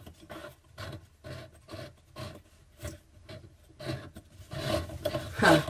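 Repeated short scraping and rubbing strokes, about two or three a second and louder towards the end, as a hand twists a mixer tap's large mounting nut up its threaded barrel against the underside of a wooden worktop. The nut will not screw home because the bulky Speedfit hose-tail ends are in the way.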